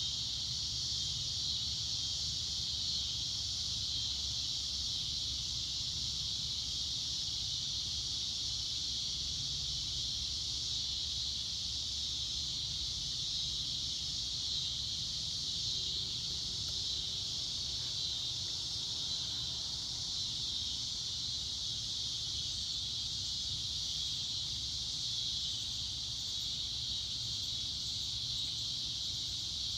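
Steady, unchanging high-pitched hiss with a faint low rumble underneath.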